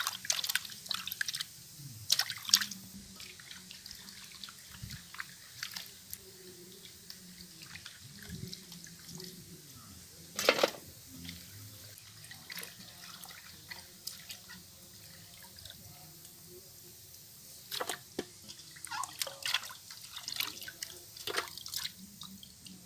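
Raw chicken pieces being washed by hand in a bowl of water: water sloshing and dripping, with scattered short splashes and clatters and one louder splash about ten seconds in.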